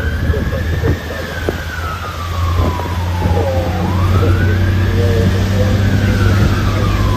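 Fire engine siren heard from inside the cab, sounding a slow wail: each cycle climbs quickly and then falls slowly, about two cycles in all. Underneath runs the steady low drone of the truck's Detroit Diesel 60 Series engine, with a few short knocks in the first half.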